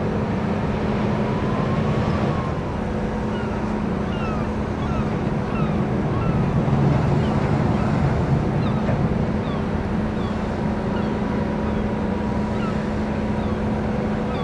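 Ship engines droning steadily: a low hum with several steady tones, with many short falling chirps over it from a few seconds in.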